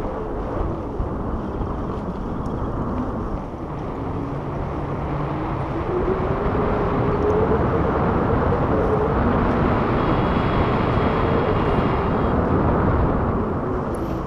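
Wind rushing over an action camera's microphone as a tandem paraglider glides in flight: a steady, low rush that grows louder about six seconds in.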